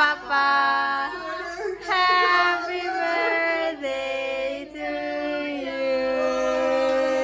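Family voices singing a birthday song together, holding long notes that step from one pitch to the next.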